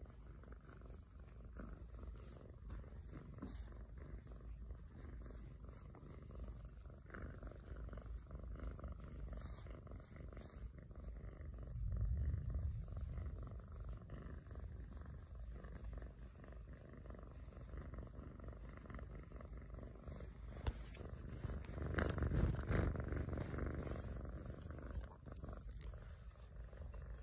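Domestic kitten purring steadily while its head is stroked, the purr swelling louder about halfway through and again later on.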